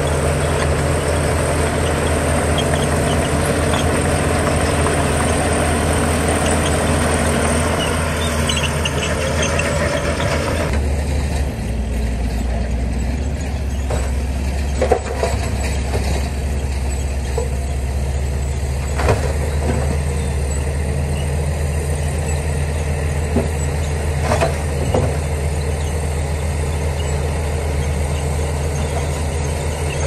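Heavy diesel earthmoving machinery running steadily. A louder, hissing layer of noise cuts off suddenly about eleven seconds in, leaving the low engine sound. A few short sharp squeaks or clanks come later.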